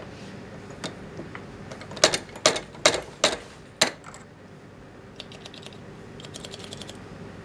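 Sharp metallic clicks and knocks of small model-steam-engine parts being handled and pressed together at a hand-lever press: a quick run of about six knocks between two and four seconds in, then faint rapid rattling of metal parts.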